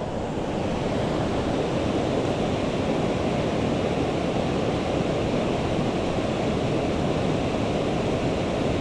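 Steady rushing of a mountain stream's flowing water, an even low wash of noise.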